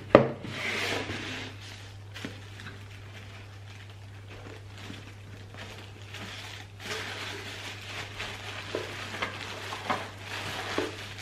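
Paper packaging rustling and crinkling as a doll is lifted out of its box, with a sharp knock right at the start and small clicks and taps of handling. The rustling comes in two spells, in the first second or so and again in the last four seconds.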